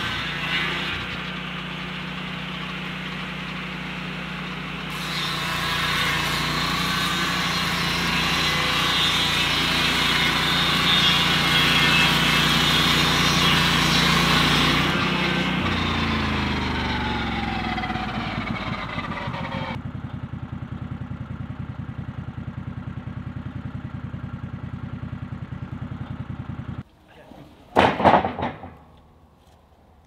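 Lucas Mill portable sawmill's petrol engine running with its circular blade cutting through a log, the noise growing louder about five seconds in. About halfway through the pitch falls as the engine and blade wind down to a steady idle. Near the end the sound cuts off abruptly and a brief loud burst follows.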